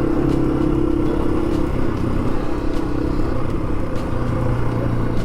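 Yamaha TW200's single-cylinder engine running at a steady pace while riding.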